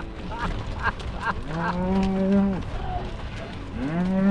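Cattle mooing: two long, drawn-out moos about a second each, the second starting near the end, with a few short, higher calls before them.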